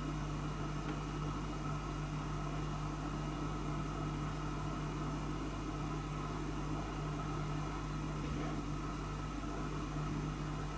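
Steady electrical hum with a light hiss, unchanging throughout.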